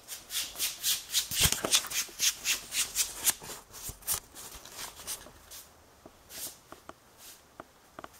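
Cat clawing a cardboard scratcher: a quick run of scratchy strokes, about four a second, for the first five seconds or so, then a few scattered strokes and faint ticks.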